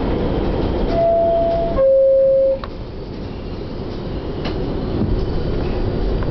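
R62A subway car's two-note door chime, a higher tone then a lower one, over the car's steady rumble. Right after it the noise drops, then builds again as the train starts to pull out.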